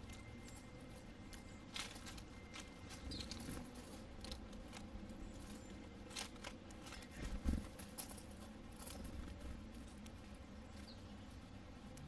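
Sparrows pecking and cracking sunflower seeds in a shallow dish: scattered sharp clicks and taps, with a few faint high bird chips. A dull low thump about seven and a half seconds in is the loudest sound.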